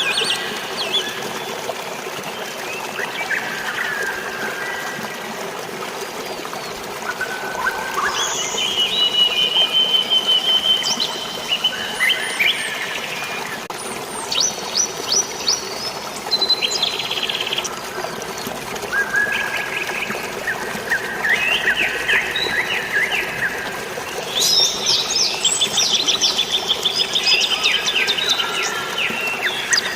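Several birds chirping, whistling and trilling in quick repeated notes over a steady hiss of falling and flowing water, with the busiest bursts of song near the middle and toward the end.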